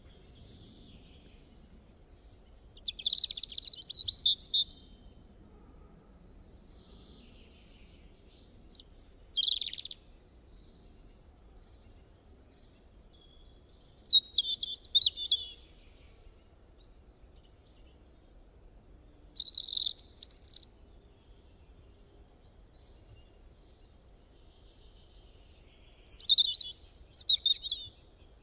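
A bird calling in five short bursts of quick, high chirps, spaced a few seconds apart, over faint low background noise.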